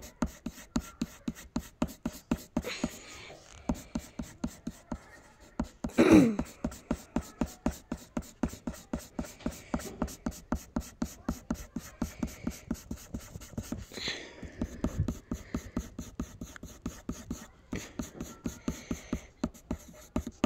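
Graphite pencil scratching on paper in rapid short hatching strokes, about five a second, as hair is shaded in. About six seconds in comes a brief, louder sound that falls in pitch.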